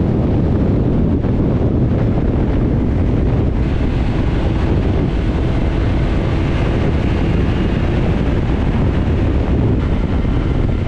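Motorcycle on the move: steady wind rush buffeting the microphone, mixed with engine and tyre noise.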